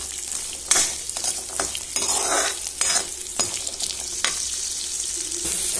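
Peeled garlic cloves frying in sesame oil in a metal kadai, sizzling steadily. A metal spatula stirring them scrapes and knocks against the pan several times.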